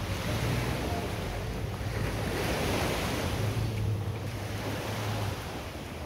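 Sea surf washing onto a sandy beach, the noise swelling to a peak about halfway through, with wind on the microphone and a steady low hum underneath that fades out near the end.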